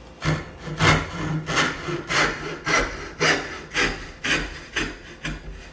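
Hand saw cutting relief kerfs into a wooden workpiece held in a vise, in about ten steady back-and-forth strokes at roughly two a second.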